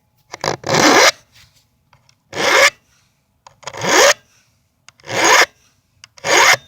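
Round chainsaw file rasping across the cutters of a Stihl MS 180's chain, sharpening it: five even strokes, about one every second and a half.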